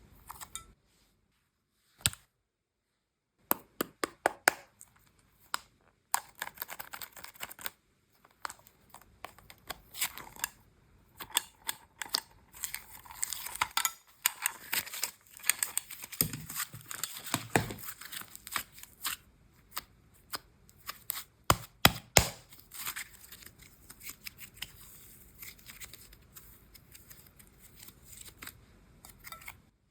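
Close-up ASMR handling of slime and play clay: irregular sticky crackles, sharp clicks and tearing rustles, densest through the middle, with a few loud snaps at about 22 seconds.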